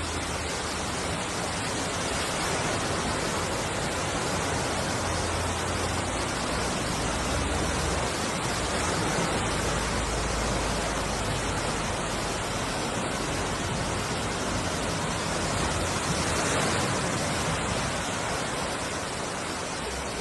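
Storm water rushing: a steady, dense hiss.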